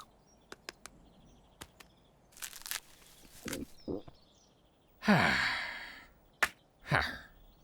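Cartoon sound effects: a few faint clicks and crackles, then a long breathy sigh falling in pitch about five seconds in, followed by a sharp click and a short vocal sound near the end.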